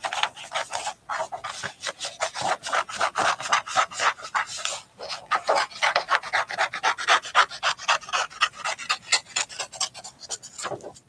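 Scissors cutting through construction paper in quick, repeated snips, several a second, with the paper rustling as it is turned.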